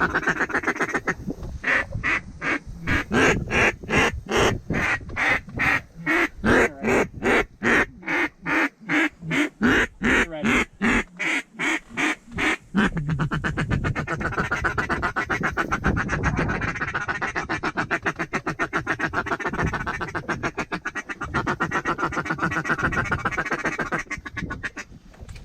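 Mallard duck call blown by a hunter to bring in ducks. A long, even series of quacks comes about three a second, and about halfway through it changes to a fast, continuous chatter of a feed call.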